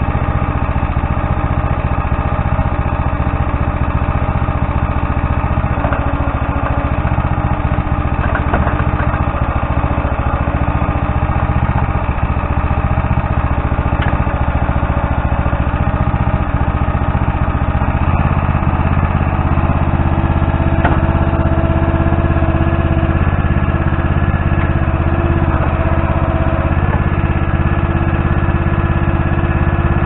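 Tractor engine running steadily to power a backhoe digging a hole, its low hum getting louder about halfway through.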